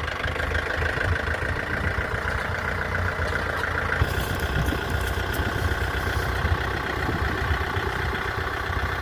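Tractor engine running steadily while it works the front bucket digging out a ditch, with a few faint ticks a few seconds in.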